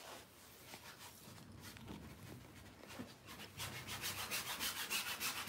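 Small sponge scrubbing paint onto a stretched canvas to blend colours. It is faint at first; from about three and a half seconds in it turns into quick, rhythmic back-and-forth strokes, about six a second.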